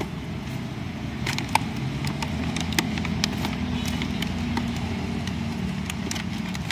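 A cardboard toy box with a clear plastic window being opened and handled, giving scattered crackles and sharp clicks of plastic and cardboard, a few louder snaps among them. Under it runs the steady low rumble of road traffic.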